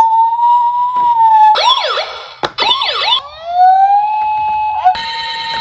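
Electronic emergency sirens: a steady high tone, then two short spells of fast up-and-down warbling cut off abruptly, then a tone that glides up and holds.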